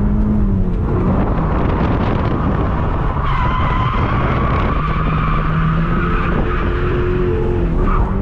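A drift car's engine held at high revs while the tyres squeal through a long slide, heard from inside the cabin. The squeal sets in about a second in and fades near the end.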